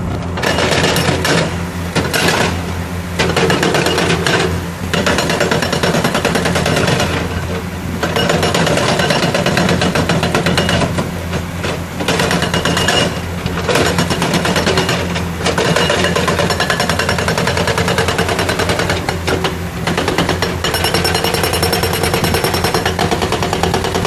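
Hydraulic breaker on an excavator hammering rock with rapid, steady blows, stopping briefly several times between runs, over the excavator's engine running.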